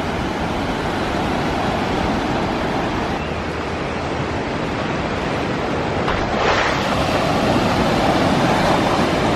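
Ocean surf: a steady rush of waves washing onto the beach, with a wave breaking about six seconds in that leaves it louder afterwards.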